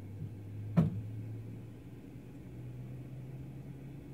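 Low steady cabin hum of a Bombardier Q400 turboprop airliner, its pitch stepping up slightly about two and a half seconds in. A single sharp click cuts through a little under a second in.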